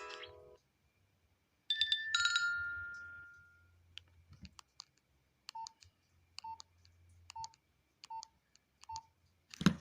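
Nokia Asha 210 phone: the tail of a ringtone stops, a two-note electronic chime rings out and fades, then five short key beeps with small clicks come about once a second as its buttons are pressed. A loud thump of the phone being handled comes near the end.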